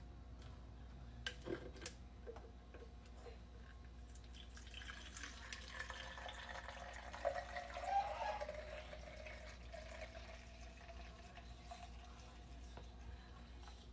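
Pumped breast milk being poured into a storage cup: a faint trickle that swells about seven to eight seconds in and then thins out.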